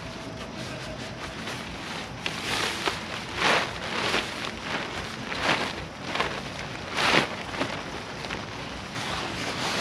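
Rustling and flapping of a camping tarp groundsheet being unfolded and shaken out, a series of sharp swishes from about two seconds in, the loudest about three and a half and seven seconds in.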